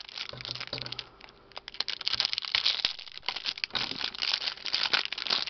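Clear plastic packaging sleeve crinkling and crackling as hands pull and peel it off a wristwatch. There is a short lull about a second in, then continuous crinkling.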